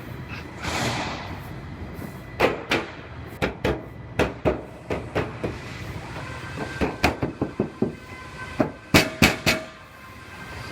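Irregular sharp metallic knocks and clanks of a sheet-metal car body panel being handled and tapped into position, about two dozen hits, some in quick runs, with a short hiss about a second in.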